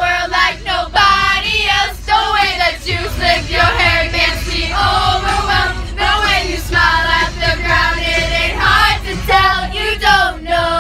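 A group of teenage voices singing loudly together, over the steady low rumble of a moving coach bus.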